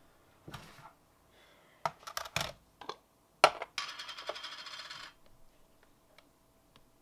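A glass jam jar being handled: a few light knocks, then a sharp clack as it is set down on a kitchen scale, followed by just over a second of dense rapid clicking as its lid is twisted off.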